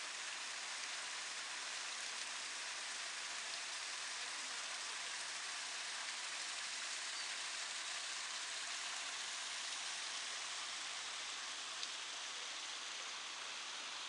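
Small artificial rock waterfall with water falling steadily over stone slabs into a pond, an even, unbroken rushing hiss.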